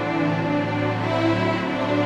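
Slow orchestral music played by sampled instruments from MuseScore's Vienna MuseSound library: held, overlapping notes over a sustained low note, with the middle voices moving to new notes about every half second.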